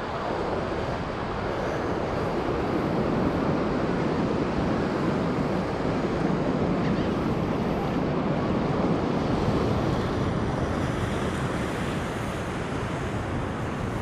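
Ocean surf breaking on a sandy beach, with wind on the microphone: a steady rushing noise that swells through the middle and eases a little near the end.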